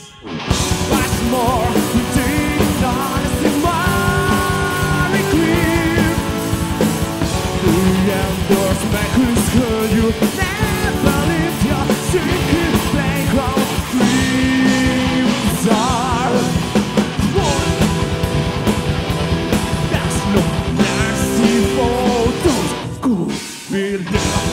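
Power metal band playing live: fast, dense drumming under distorted guitars, with a wavering lead melody on top. The music dips for a moment right at the start and again about a second before the end.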